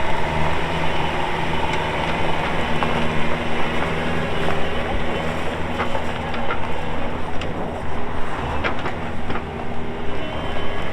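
Yanmar YB401W wheeled excavator's diesel engine running steadily while the machine works, with a few short knocks scattered through.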